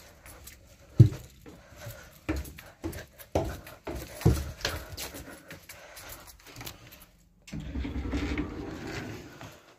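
Footsteps and handling knocks as a person walks through a train carriage, uneven, a few per second. A steady hum takes over for the last two seconds.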